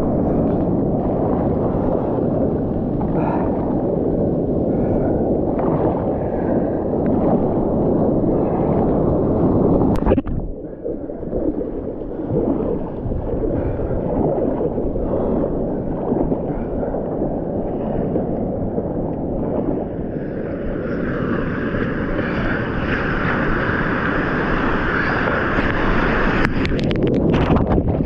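Whitewater rushing and splashing around a paddled kayak in broken surf, with wind rumbling on the microphone. The sound drops sharply about a third of the way in. A hissing fizz of foam builds later, and a few sharp splashes come near the end.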